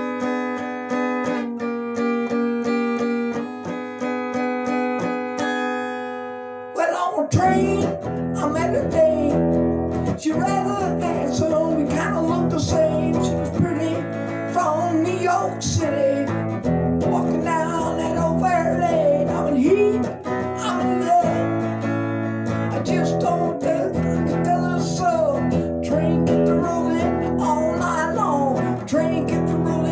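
Blues-rock music on a Telecaster-style electric guitar. Sustained ringing chords open it, then about seven seconds in a fuller accompaniment with a bass line comes in and the guitar plays a lead with wavering, bent notes.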